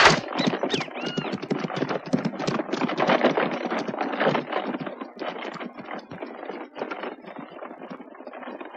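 Horse-drawn carriage pulling away: hooves clopping and wheels clattering, fading steadily as it goes, with a brief squeal about a second in.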